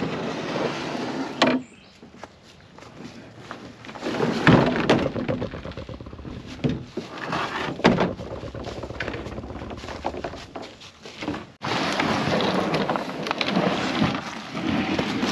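Plastic kayak hull knocking and scraping with a few loud thuds as it is slid out of a pickup truck bed. For the last few seconds there is a steady rustling scrape of the hull being dragged over dry leaves.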